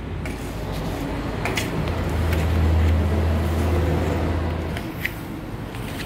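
A low hum that swells for a few seconds and then fades, with a few light clicks of plates and a tray against a steel tabletop as food is set down.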